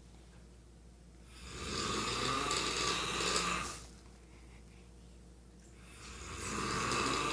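A man snoring in his sleep, loud enough to be likened to a chainsaw: one snore of about two and a half seconds starting about a second in, a quiet stretch between breaths, then the next snore building near the end.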